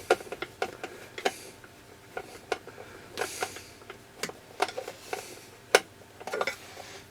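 Light irregular metal clicks and ticks as a screw is fitted through a small bent metal bracket into a brass insert, with a few short scrapes and one sharper click near the end.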